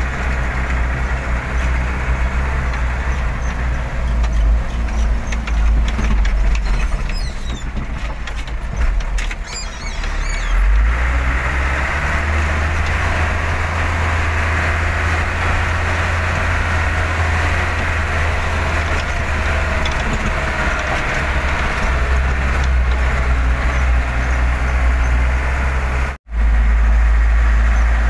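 4x4 truck engine running under way, heard from inside the cab as it drives over a rough gravel track, with a steady low rumble. Scattered rattles and clicks come a few seconds in, and the engine gets louder from about eleven seconds in. The sound drops out for a moment near the end.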